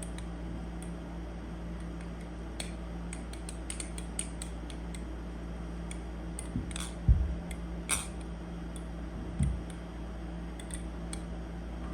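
Tsunami balisong (butterfly knife) being flipped by hand: irregular light metallic clicks and clacks of the handles and blade swinging and meeting, with two louder dull knocks about seven and nine and a half seconds in, over a steady low hum.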